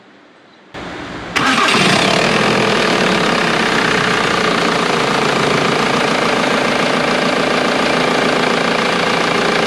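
Ford Transit 2.4 L diesel engine cranked by its starter and catching about a second in, with a brief rise in revs before settling into a steady idle. The idle runs without the earlier diesel knock, because the fuel pump timing solenoid has been replaced.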